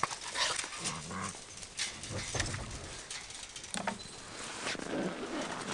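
Sled dog puppies whimpering and yipping in short calls, among scattered short clicks and rustles.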